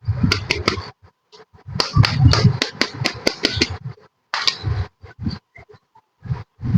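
Miniature plastic toy kitchen pieces and their packaging handled: clusters of sharp clicks and rustling with soft knocks, in bursts separated by short gaps that grow more broken after about four seconds.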